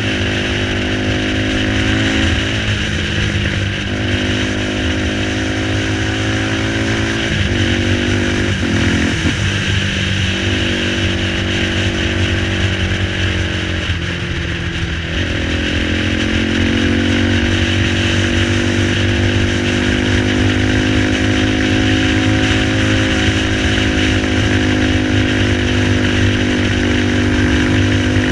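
Dinli 450 quad's single-cylinder engine running under way, its note shifting up and down with throttle and gear changes, dropping briefly about halfway through before climbing and holding steady. Steady wind rush on the helmet camera runs under it.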